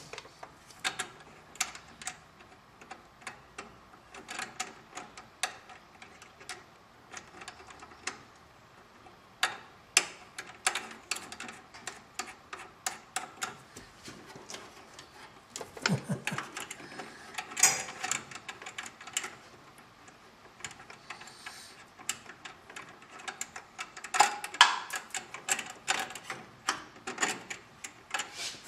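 Irregular clicks, taps and light rattles of hands handling and fitting wiring around an electric fan controller in a car's engine bay.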